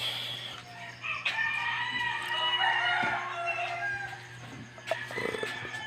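A rooster crowing once, starting about a second in and lasting a couple of seconds, over a steady low hum.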